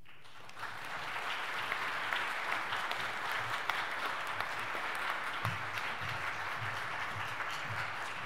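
Audience applauding: a dense patter of many hands clapping that builds up over the first second and then holds steady.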